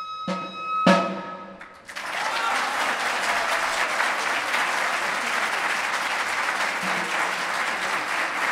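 Txistus (Basque three-holed flutes) sounding the last held note of a tune, with two tamboril drum strikes closing the piece. About two seconds in, an audience starts applauding and keeps on.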